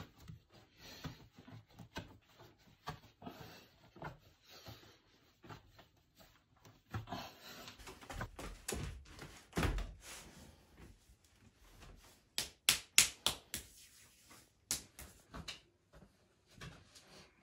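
Hands working bread dough in a wooden trough: irregular soft rubs and pats. About two-thirds of the way through comes a quick run of sharp knocks, the loudest sounds here.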